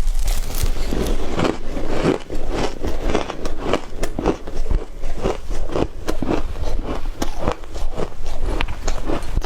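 A person chewing and crunching shaved ice, a continuous run of short crunches a few times a second.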